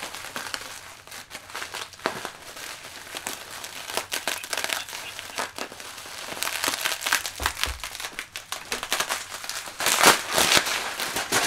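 Bubble wrap crinkling and crackling as it is pulled and unwound from a wrapped guitar, in a dense run of irregular crackles that is loudest about ten seconds in.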